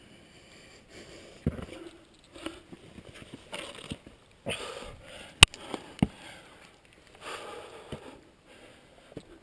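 A climber's breathing, a breath every second or two, mixed with sharp knocks against the rock as they scramble up a granite chimney; the loudest knock comes about five and a half seconds in.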